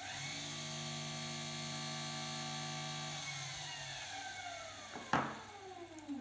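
Electric go-kart motor, driven by its speed controller on the fast setting, spinning up to full speed with a steady whine, holding there for about three seconds, then winding down with falling pitch. A single sharp click comes about five seconds in.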